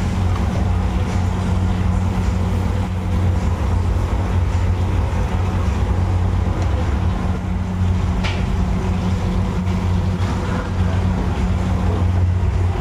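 Steady low mechanical hum, like a running motor or blower, with no change in level. A brief higher scrape about two-thirds of the way through.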